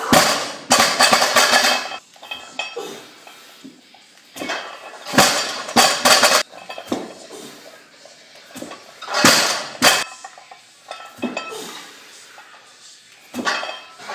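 Loaded axle barbell with bumper plates coming down onto a concrete floor again and again, each landing a loud metallic clash with the plates and bar clanking and rattling. These are the drops between repeated clean and jerk reps.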